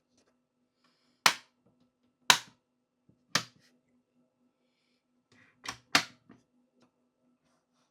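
Sharp clicks and taps of a 1:18 die-cast model car being handled on a hard surface: three about a second apart, then two in quick succession near the end.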